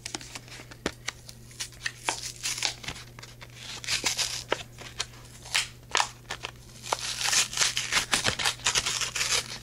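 Clear plastic blister packaging of a diecast model car being pried and torn open off its card: irregular sharp crackles, clicks and crinkling of the plastic, busiest about four seconds in and again in the last few seconds.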